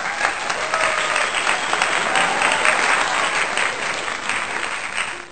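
Crowd applause, a dense steady clapping that tapers off near the end.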